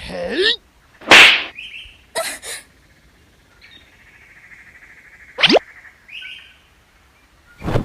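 A bird calling in short, separate bursts: a loud harsh call about a second in, a faint steady tone through the middle, and a quick call that sweeps sharply upward in pitch a little past the middle.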